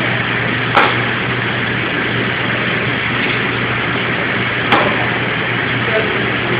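Kitchen knife striking the cutting board while slicing a green pepper: two sharp knocks, about a second in and just before five seconds, over a steady background hum and hiss.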